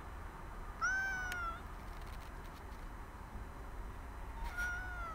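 Black cat meowing twice: two short meows with a slightly falling pitch, about three and a half seconds apart, the first one louder.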